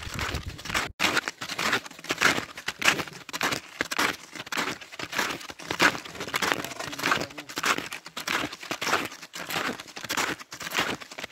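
Footsteps crunching on packed snow: a string of irregular crisp crunches, cut by a brief dropout about a second in.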